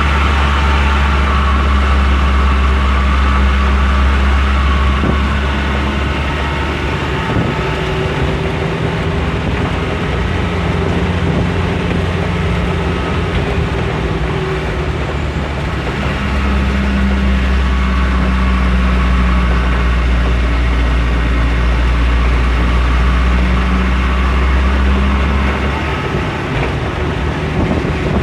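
Heavy truck's diesel engine running under load, a deep steady drone that weakens for about ten seconds after the start, swells again, and eases off near the end.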